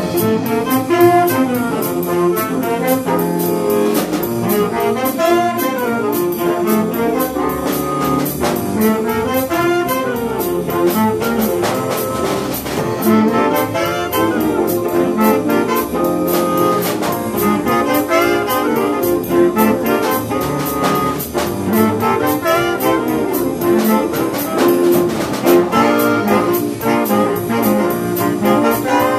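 High school saxophone section playing a jazz arrangement together, backed by a rhythm section of drum kit, upright bass, guitar and piano; the drums keep a steady beat throughout.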